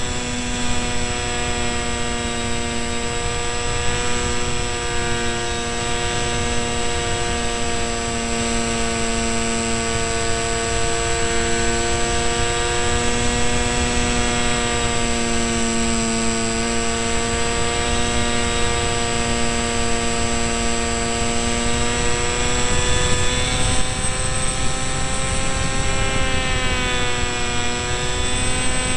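Electric motor and propeller of an RC delta-wing model plane running steadily in flight, a droning whine with a thin high tone above it, heard from a camera on the model with wind rush beneath. The pitch climbs a little in the last few seconds, then drops.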